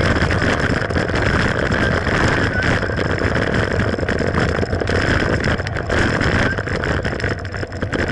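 Mountain bike riding over a trail: a steady rush of wind and rolling noise, broken by many small rattles and knocks from the bike on rough ground.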